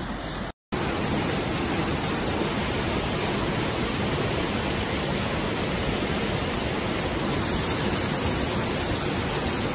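Fast-flowing muddy floodwater from an overflowing stream rushing past, a dense, steady noise. It drops out briefly less than a second in, then resumes unchanged.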